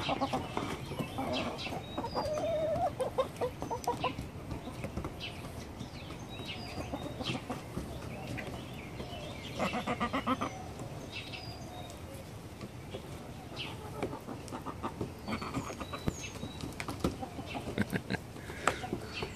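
Several hens clucking and calling as they feed, with short high peeps, a louder run of calls about ten seconds in, and scattered taps of beaks pecking at food in a plastic tray.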